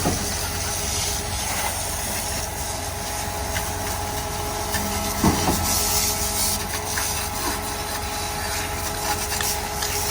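An engine running steadily under a constant hiss of water being sprayed, with one brief knock about halfway through.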